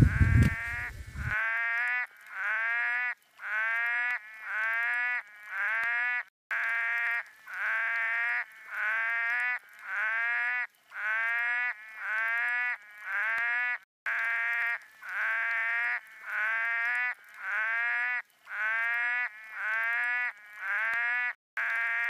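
Frog calls: a short rising note repeated about once a second, in an unbroken series.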